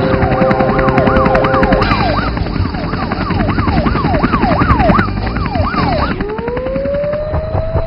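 Cartoon fire engine siren wailing fast up and down, about two sweeps a second. About six seconds in the siren stops and a rising whine climbs and then holds steady.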